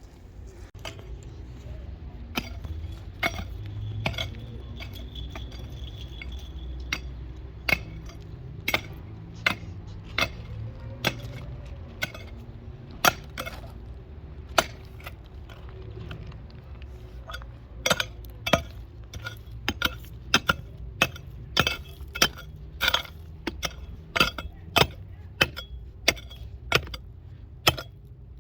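A long run of sharp, separate clinks, like hard objects of glass or metal knocking together. They come irregularly, about one a second at first and faster after about eighteen seconds, over a steady low hum.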